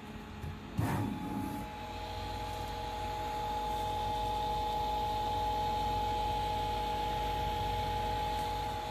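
A small motor hums steadily with a few held tones over a light hiss. A short knock and rustle comes about a second in.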